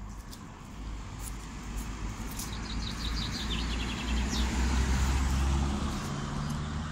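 A car passing on the road, its engine and tyre noise building to a peak about five seconds in and then dropping away. A bird chirps a quick run of short high notes near the middle.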